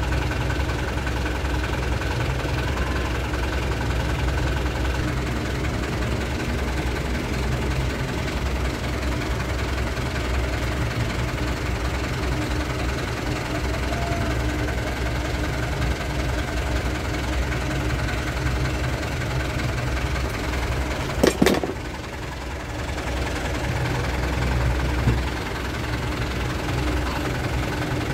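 Mitsubishi Colt Diesel truck's 3.9-litre diesel engine idling steadily. About 21 seconds in, a short, sharp double click or knock cuts across it.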